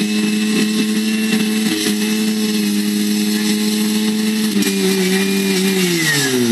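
Engine of a portable fire pump running at high, steady revs, its pitch sagging about four and a half seconds in and then falling steeply near the end as it loses speed: the sign of the defect that stopped the run.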